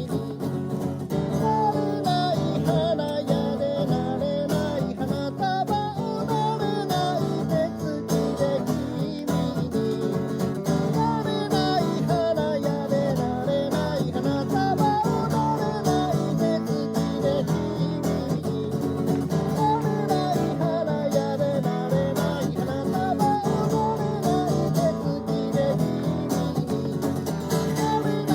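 Acoustic guitar strummed steadily in an instrumental passage of a song, with a wavering melody line carried above the chords.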